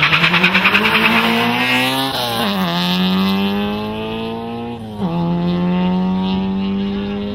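A VW Polo and a Citroën Saxo launching hard in a quarter-mile drag race, with tyres squealing in wheelspin for the first two seconds as the engine note climbs. Two upshifts follow, about two and five seconds in; each drops the pitch before it climbs again.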